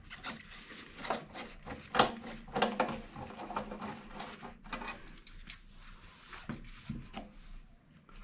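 Scattered clicks and light knocks of a range hood insert's electrical box cover being worked loose and taken off by hand.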